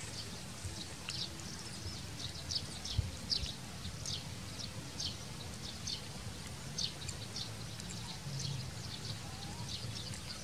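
A baby chick peeping over and over, short high cheeps a few times a second, with a low rumble underneath.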